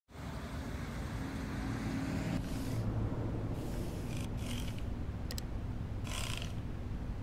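A steady low hum, with several short soft swishes and a quick pair of computer-mouse clicks about five seconds in.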